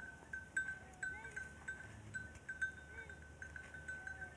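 Bell on a camel's neck collar ringing again and again as the camel moves, each strike a clear single tone that dies away. A few faint short rising-and-falling calls sound in the background.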